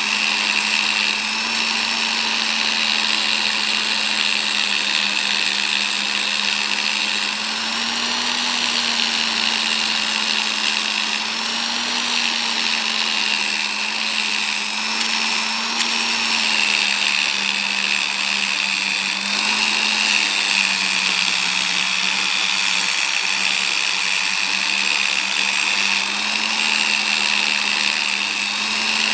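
Flexible-shaft rotary tool spinning a polishing wheel against carved sonokeling wood: a steady motor whirr whose pitch wavers slightly and dips a little past the middle.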